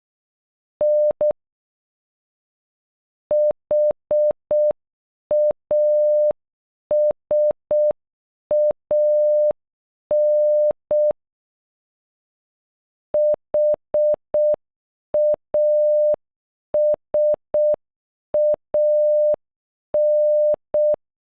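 Morse code beep tone spelling HASAN (.... .- ... .- -.) at a slow pace: one steady mid-pitched tone keyed in short dots and long dashes, with clear gaps between letters. The whole name is sent twice, after a lone dash-dot (N) about a second in.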